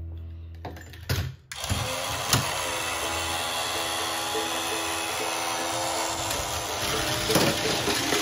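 Small motorized Tomica System toy conveyor running with a steady mechanical whirr as its belt carries a die-cast toy car up the slope. There are plastic clicks about a second in, and a rattling clatter near the end as the car comes off onto the plastic track.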